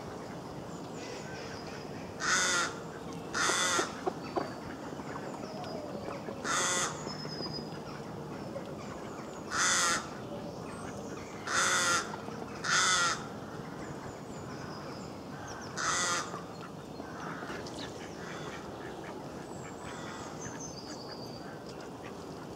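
Seven short, loud, harsh bird calls at irregular intervals, some in pairs about a second apart, over faint high chirping of small birds.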